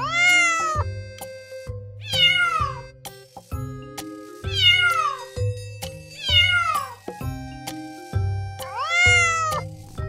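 A cat meowing five times, each meow rising then falling in pitch, over background music.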